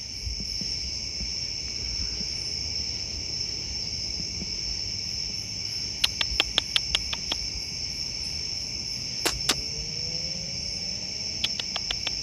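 Steady chorus of crickets, a high continuous trilling. About halfway through, a quick run of sharp clicks cuts through, with a couple more a few seconds later and a few near the end.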